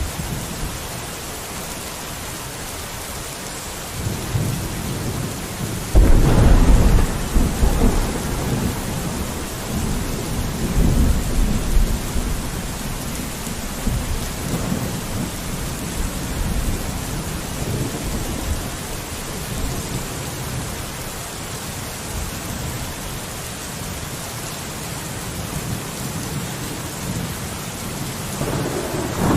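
Steady rain on a window with a thunderstorm: a low rumble of thunder builds about four seconds in, breaks into a loud clap about two seconds later and rolls on for several seconds, and another roll of thunder begins near the end.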